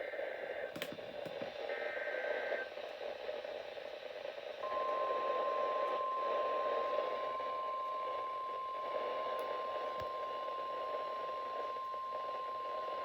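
NOAA Weather Radio tornado-warning alert heard through a radio receiver over steady static hiss. It opens with two short buzzy bursts of the SAME digital header. About four and a half seconds in, the warning alarm tone starts: one steady high pitch, held.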